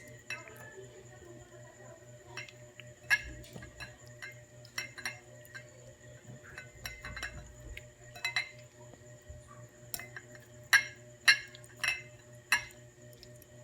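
Chicken wings being mixed by hand in marinade in a bowl: scattered light clinks and taps against the bowl, with a few sharper clinks near the end.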